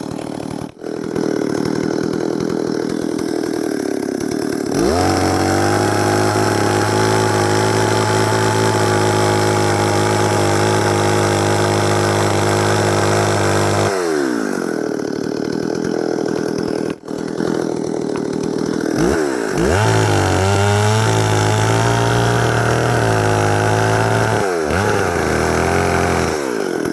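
Stihl 038 Magnum two-stroke chainsaw idling, then opened up to full throttle and held for about nine seconds while bucking a log, before dropping back to idle. It is then run up again for about five seconds, the pitch wavering under the cut, and dropping back to idle near the end.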